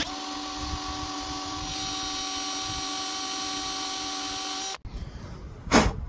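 Handheld power tool running at a steady whine with its bit on cast iron, then stopping abruptly a little before five seconds in.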